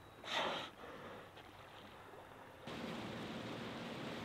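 Open-water ambience with a short, loud rush of noise about half a second in. Near the middle the background steps up suddenly to a steady, louder hiss of water.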